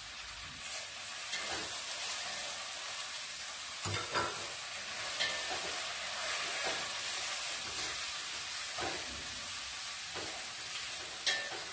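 Chicken and onion sizzling as they fry in oil in a pot with spices just stirred in. A wooden spoon stirs them, scraping and knocking against the pot now and then.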